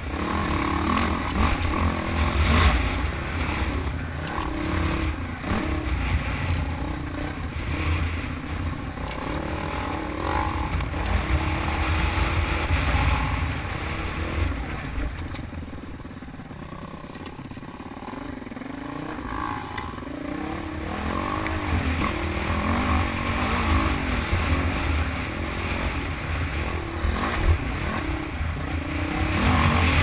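Dirt bike engine running on a rough trail, its revs rising and falling with the throttle. It goes quieter for a few seconds about halfway through.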